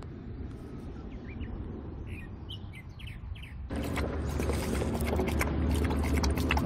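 Small birds chirping in the background, then, from about halfway through, a Pungsan dog lapping water from a stainless steel bowl. The lapping is a quick run of wet laps and splashes, louder than the birdsong.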